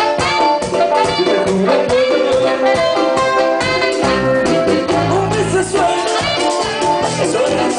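Live bachata band playing, with a male lead singer singing into a microphone over guitar and percussion.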